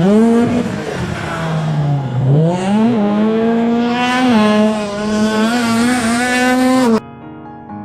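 Race car engine revving hard, its pitch dropping twice and climbing back up, then cutting off suddenly about seven seconds in, where piano music takes over.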